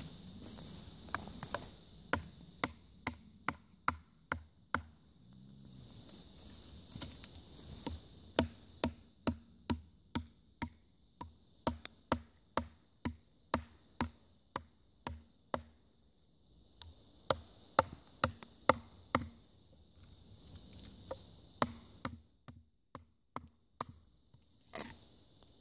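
Gerber Bear Grylls Ultimate fixed-blade survival knife chopping into a wooden log: sharp knocks about two a second, in runs broken by short pauses.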